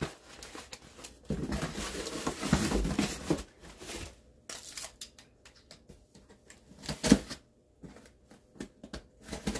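Rustling and tearing of packaging as an item is handled and opened, with scattered clicks and one sharp knock about seven seconds in.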